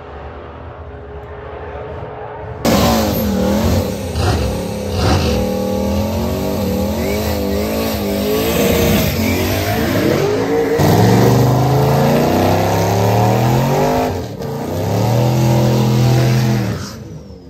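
Drag cars' engines revving hard at the starting line. The sound is fainter for the first couple of seconds, then jumps loud, with a burnout's spinning rear tyres under the wavering engine note. In the second half a car's engine revs up again and again in rising sweeps.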